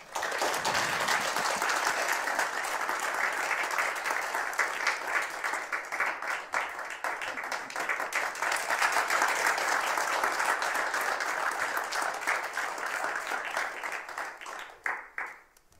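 Audience applauding steadily, thinning to a few scattered claps near the end and then stopping.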